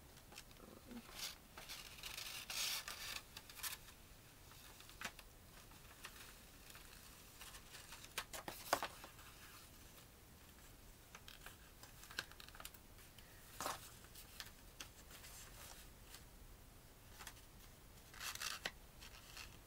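Paper rustling and crinkling in short, scattered bursts as a paper mask and muzzle are handled and held to the face, with one sharp click about nine seconds in.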